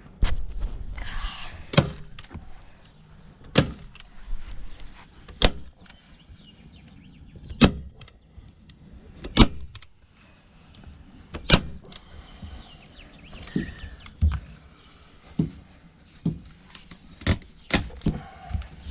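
Sharp single snaps or knocks from work on the boat, about one every two seconds, with a short whirring sound about a second in.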